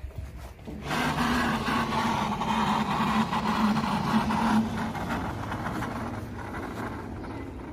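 A motor running steadily with a constant low hum. It starts abruptly about a second in, then fades gradually over the second half.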